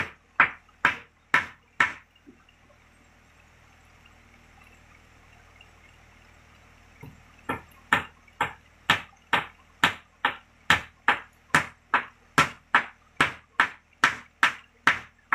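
Hand hammer striking a piece held against a wooden plank, in steady blows about two a second: a few at the start, a pause of about five seconds, then a long unbroken run from about seven seconds in.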